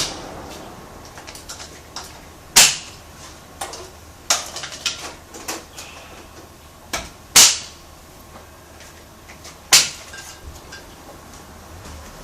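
Scattered sharp knocks and clicks of hand work on a tyre and wheel, three louder knocks about two and a half, seven and a half and ten seconds in, with smaller clicks between.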